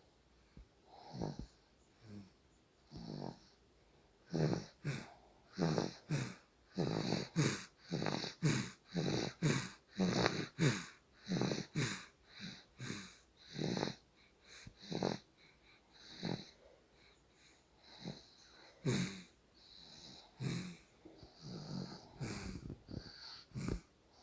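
Sleeper's wheezy snoring and snuffling breaths in a quick series. They come about two a second through the middle and are sparser at the start and end.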